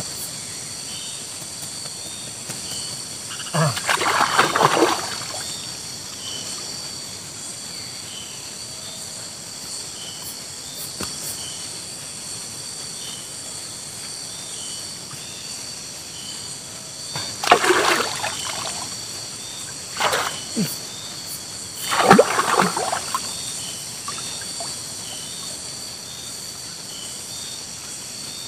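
Steady chorus of forest insects, with a short chirp repeating about once a second. Water splashes and sloshes in four short bursts.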